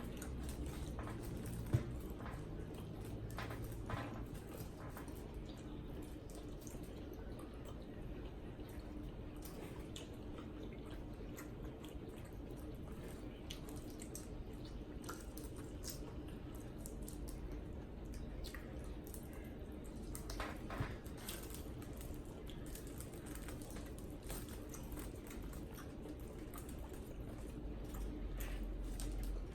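Close, wet eating sounds of a saucy shrimp boil being handled and chewed: sticky little clicks, smacks and squelches, with one sharper click about two seconds in.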